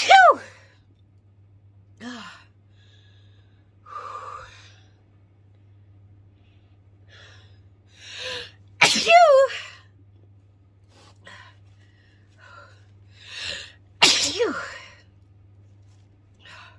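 A woman sneezing three times, set off by sniffing pepper: one right at the start, a big one about nine seconds in and another about fourteen seconds in, each a sharp burst with a voiced cry falling in pitch. Quick in-breaths and sniffs come before each sneeze, over a faint steady low hum.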